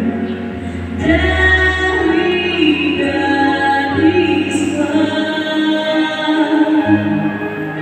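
A woman singing a slow song into a microphone over instrumental accompaniment, heard through the church's loudspeakers, holding long notes.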